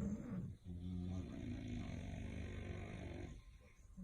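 English bulldog snoring: a brief snore, then one long, low snore lasting about three seconds, with a short lull near the end before the next breath.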